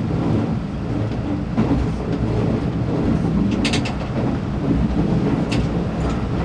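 Shin-Keisei Line electric commuter train running along the track, its steady wheel-and-motor rumble heard from inside the driver's cab. Two brief high clicks, one a little past halfway and a shorter one later.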